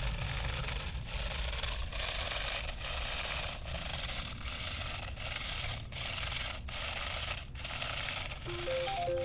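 Toy RC stunt car running its demo mode: a harsh whirring, rasping noise that breaks off briefly about every second. Near the end a short beeping electronic tune starts from the toy's speaker.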